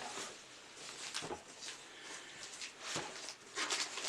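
Unboxing handling noise: rustling packaging with a few light knocks, about a second in and again about three seconds in.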